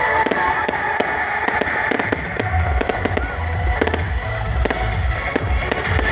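Loud music played through a large sound system, with dense, irregular crackling clicks throughout and a heavy pulsing bass coming in about halfway through.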